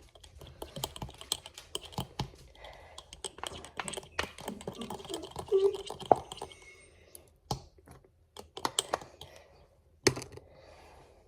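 Quick, irregular small clicks and taps from handling a lotion bottle and the bowl of slime mixture as lotion is added.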